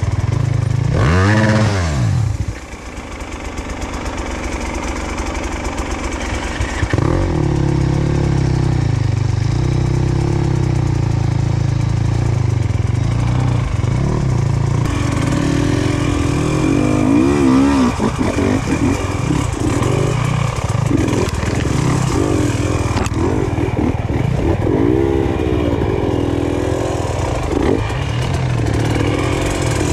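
Enduro motorcycle engine being ridden off-road, its revs rising and falling over and over in short bursts. There is a sharp rev about a second in and a brief drop soon after, then steady running with repeated throttle blips.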